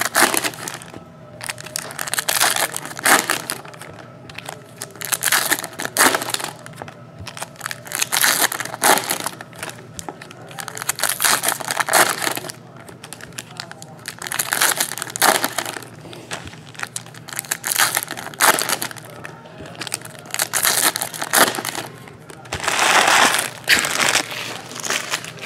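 Foil wrappers of Panini Prizm football card packs crinkling and tearing as packs are ripped open by hand, in repeated bursts every second or two, the loudest near the end.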